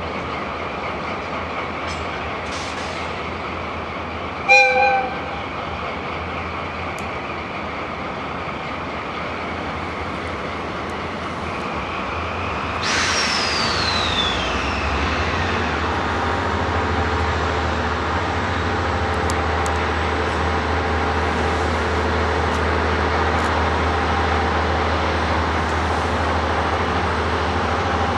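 A train horn gives one short blast a few seconds in. About halfway through, a diesel train grows louder with a high falling whine, then its engine and wheels run on steadily.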